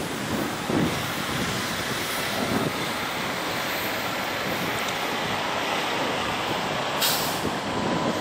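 Steady rush of a Boeing 777 freighter's GE90 jet engines at taxi power, with gusty wind buffeting the microphone. A short, sharp burst of noise comes about seven seconds in.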